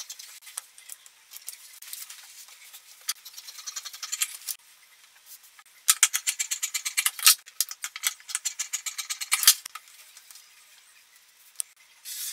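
Scissors cutting through shirt fabric: runs of quick, crisp clicking snips, sparse at first and densest about six to nine and a half seconds in.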